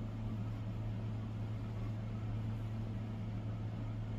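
Steady low hum with faint background hiss.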